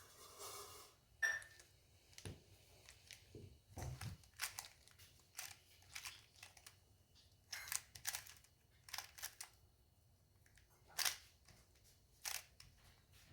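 3x3 speed cube being turned by hand while solving the cross: faint, irregular clicks and clacks of the layers snapping into place.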